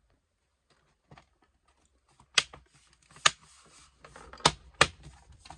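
Plastic snap clips of an HP 15s laptop's bottom case clicking into place as the cover is pressed shut, a few sharp separate clicks starting about two seconds in and coming closer together near the end.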